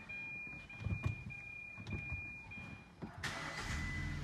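A high electronic tone sounding in short repeated steps, then about three seconds in the Hyundai i10's engine is cranked and catches, settling into a steady idle with the misfire cleared.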